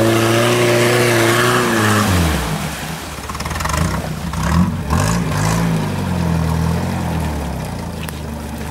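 UAZ-469 engine revving hard as the 4x4 churns through deep mud. The revs drop about two seconds in, then rise and fall again in short bursts of throttle before settling lower near the end.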